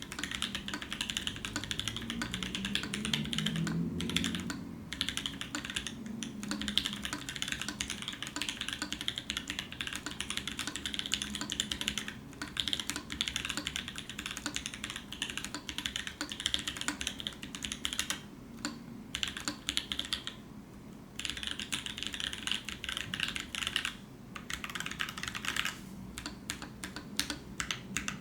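Continuous fast typing on a Praxis mechanical keyboard with Kiwi tactile switches, lubed with 3203 and filmed, on a black aluminium plate with Zeal stabilisers: a dense stream of keystroke clacks. There are a few short pauses, the longest about twenty seconds in.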